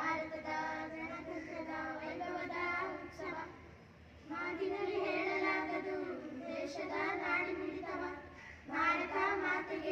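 A small group of schoolchildren singing a group song together into a microphone, in three phrases broken by short pauses.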